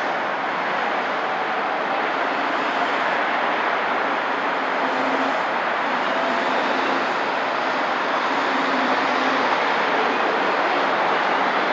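Steady road traffic: cars and trucks passing close by on a multi-lane road, a continuous rush of tyres and engines, with a truck's engine hum coming through about halfway.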